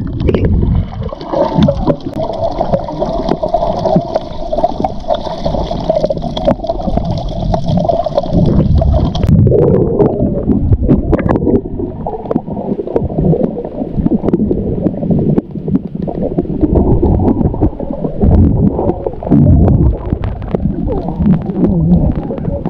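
Water gurgling and sloshing right against the microphone, a loud, irregular churning, with a steadier hum over it until about nine seconds in.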